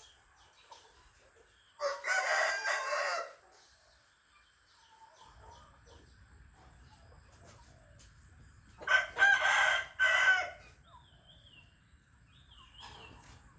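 Rooster crowing twice, each crow about a second and a half long, the second starting about seven seconds after the first.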